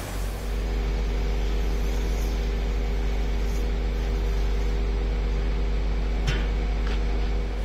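Work truck's engine running steadily with a low, even hum. A short sharp click about six seconds in, and a fainter one soon after.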